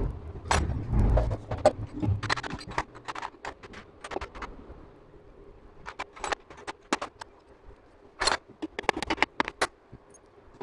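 Scattered sharp metallic clinks and taps of hand tools and small parts against a Honda CG125's aluminium crankcase and clutch assembly during hand reassembly, with a dull low handling thump in the first couple of seconds.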